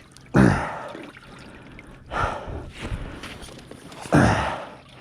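A man breathing hard from exertion, with two loud sighing exhales that fall in pitch, about half a second in and again about four seconds in, and softer breaths between.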